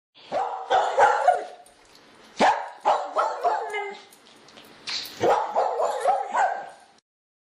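A dog barking and yipping in three quick bouts, then stopping abruptly.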